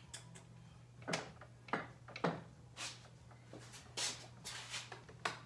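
Scattered sharp clicks and clunks of metal parts being handled as the Harley engine is turned by hand for a timing check, over a steady low hum.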